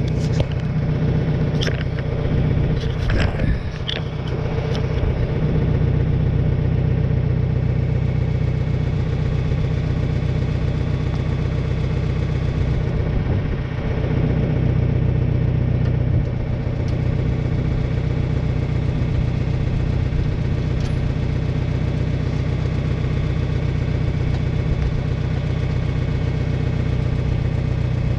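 Tractor engine running steadily, with a few sharp knocks or clanks about two to five seconds in.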